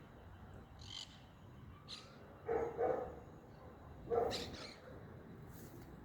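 Three short animal calls, two close together about halfway through and a third a second and a half later, with faint high chirps before them.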